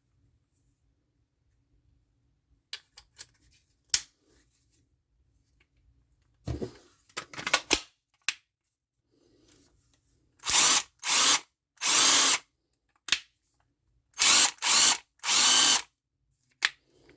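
Hart 20V cordless impact driver run in six short trigger pulls, in two groups of three a few seconds apart. A few clicks and handling knocks come before the first run.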